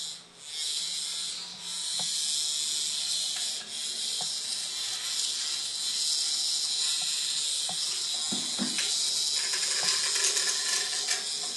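Hexbug Nano vibration toy buzzing and rattling steadily across a tiled floor, with a few soft knocks as cats bat at it.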